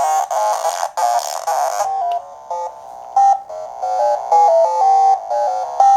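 Sequenced synthesizer melody: the sine of a self-oscillating L-1 2180 VCF stepping through notes from a Korg SQ-1 sequencer, run through the PoodleGroomer Eurorack filter/waveshaper. About two seconds in the sound turns thinner and more clipped, with short gaps between notes.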